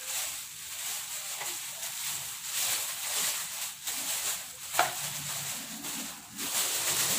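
Thin clear plastic bag rustling and crinkling as it is handled and pulled off a speaker, with a single sharp click about five seconds in.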